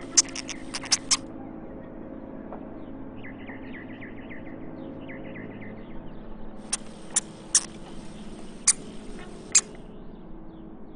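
Hamster sounds: two clusters of sharp clicks, one near the start and one in the second half, with faint rapid high-pitched squeaks in between, over a low steady hum.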